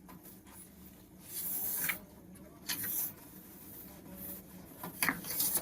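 Power-supply cables and plastic parts being handled inside a desktop PC case: three short bouts of rustling and scraping with light clicks, the last the loudest.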